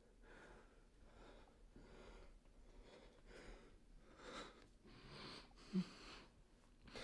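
Faint, tense breathing of a man, soft rushes in and out, a little stronger in the second half, with one short low blip about six seconds in.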